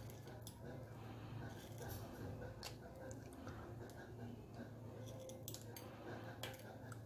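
Faint, scattered clicks and taps of chocolate chips being set around an Oreo cookie on top of a dessert in a plastic cup, over a low steady hum.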